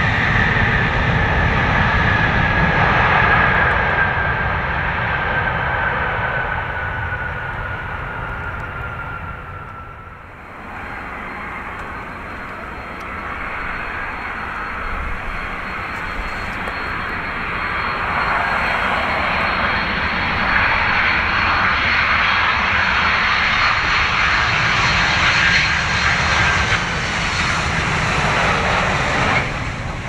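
Jet airliner engines: a whine sliding slowly down in pitch over a loud rushing roar, fading about ten seconds in, then another stretch of jet engine roar building up and stopping abruptly just before the end.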